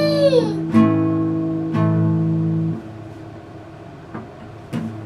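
Acoustic guitar strummed twice, about a second apart, the chords ringing and then fading. At the very start a brief high whine rises and falls in pitch.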